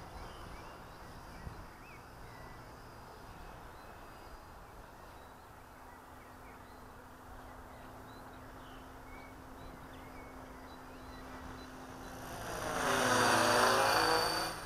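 T-Rex 600 flybarless RC helicopter flying, faint at a distance at first, then passing close and loud about twelve seconds in, its rotor and drivetrain pitch dropping as it goes by.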